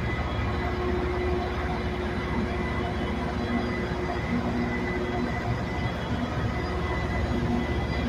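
Loram rail grinding train's diesel engines running as it pulls slowly away: a steady low rumble with steady high whining tones over it.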